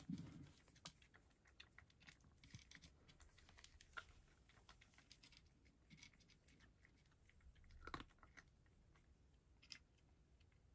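Cat faintly crunching dry kibble from a dish, a run of small irregular chewing clicks, with a slightly louder crunch about four seconds in and again near eight seconds.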